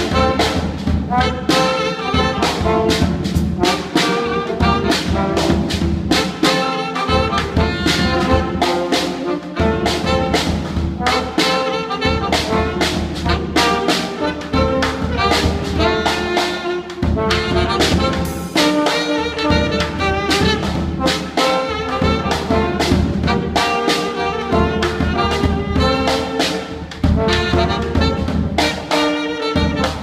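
Trombone and saxophone playing a tune together over a drum kit beat of snare, bass drum and cymbals.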